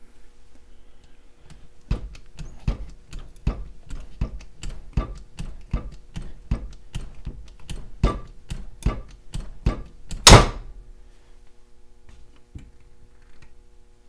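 18-inch hydraulic bolt cutter being pumped, a steady run of clicks about three a second as its blades press into a 12 mm hardened steel U-lock shackle. About ten seconds in, one loud sharp snap: the shackle breaking with the blades only about two-thirds of the way through.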